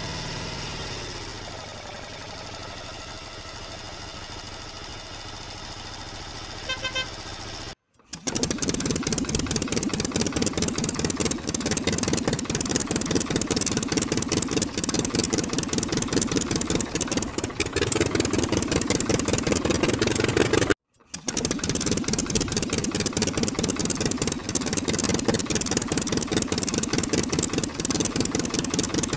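Engine running sounds, not the toys themselves: a steady engine drone for the first third, then a fast, even chugging engine, louder. It is broken twice by sudden short cuts to silence.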